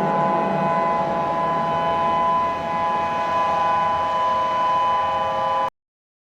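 Emergency alert tone: several steady electronic tones held together over a low hum, cutting off abruptly near the end.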